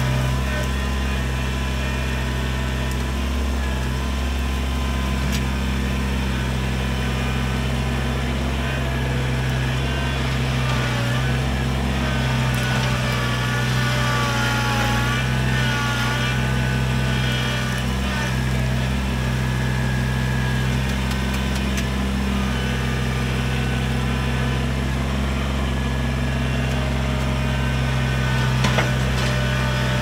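Kubota BX23S compact tractor's three-cylinder diesel engine running steadily while the tractor works dirt with its front loader, with higher tones that rise and fall about halfway through and a short knock near the end.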